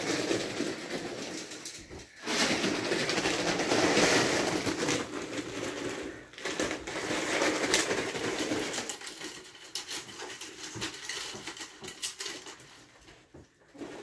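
Ferrets scrambling through clear, wire-ribbed flexible plastic tubing, the thin plastic crinkling and rustling as they move. The rustling dies down over the last few seconds.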